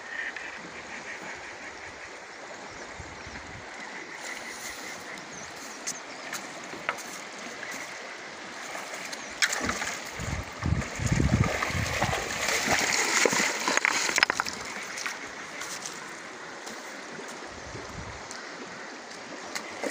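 Steady rush of a shallow, stony river, with several seconds of loud splashing about halfway through as a hooked fish thrashes and is grabbed by hand at the surface.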